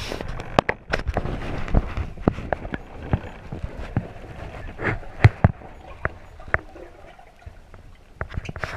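Rowing boat under way: oars knocking irregularly against the boat and oarlocks, with water noise.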